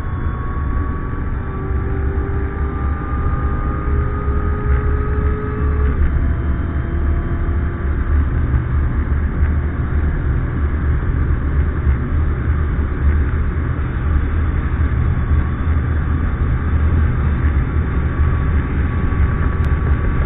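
Supercharged 6.2-litre V8 of a Corvette C7 Z06 at full throttle at well over 200 km/h, heard from inside the cabin. The engine note climbs in pitch, drops with an automatic upshift about six seconds in, then climbs slowly again as the car nears 310 km/h. All of it sits over a heavy low rumble.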